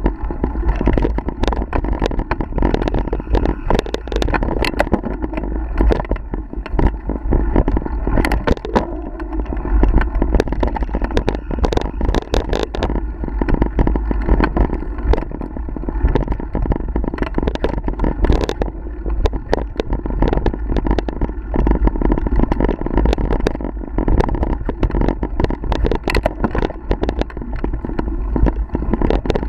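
Mountain bike ridden fast down a dirt trail, heard from the bike itself: a constant low rumble of wind on the microphone and tyres on dirt, with dense, irregular rattling and knocking of the bike and camera mount over bumps and roots.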